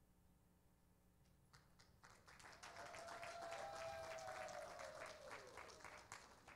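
Congregation applauding, faint at first and swelling from about two seconds in, then thinning toward the end, with one drawn-out voice cheering over the claps and falling in pitch near the end.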